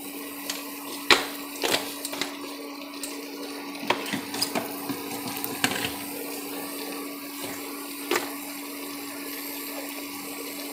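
A wooden spatula stirring spiced onions and jackfruit in an aluminium pressure cooker, knocking and scraping against the pot several times, loudest about a second in and again near eight seconds. A steady hum runs underneath.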